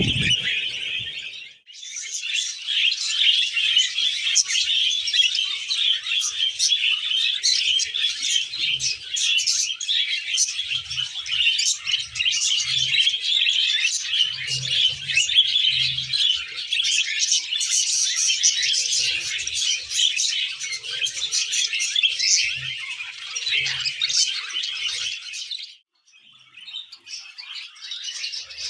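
Budgerigars chattering and warbling continuously in fast, high chirps. The chatter breaks off briefly twice, about a second and a half in and near the end.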